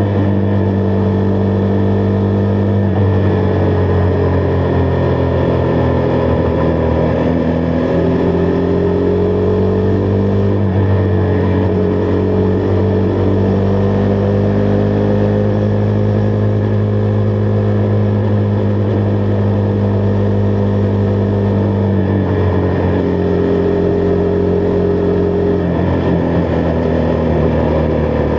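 Husqvarna Vitpilen 401's single-cylinder engine running steadily while riding at cruising speed, its pitch drifting gently up and down with a few small changes in engine speed.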